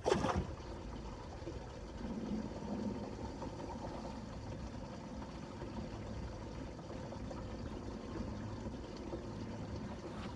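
Water trickling and lapping on a small fishing boat over a steady low hum, after a sharp knock right at the start.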